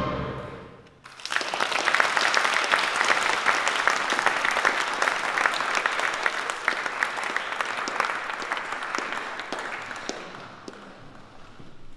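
An orchestra's final chord dying away, then an audience applauding for about nine seconds, the clapping thinning out near the end.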